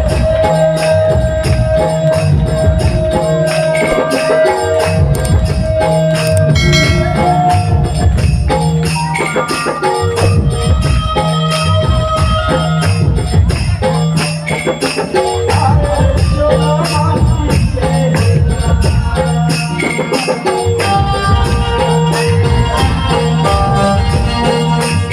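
Live instrumental interlude of a Chhattisgarhi Ramayan devotional band: steady, fast drumming with jingling percussion under long held melody notes.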